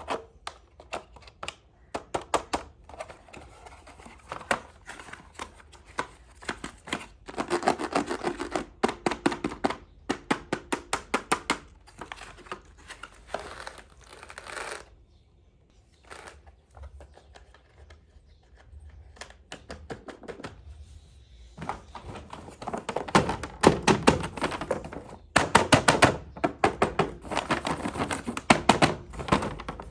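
Small plastic toy pieces and packaging being handled: rapid clicks and taps with some crinkling, coming in bursts with a short lull about halfway through.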